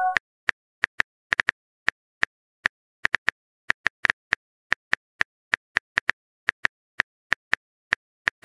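Simulated keyboard typing clicks from a texting-story app: short, identical ticks at an uneven pace of about two or three a second, one per letter typed into a message.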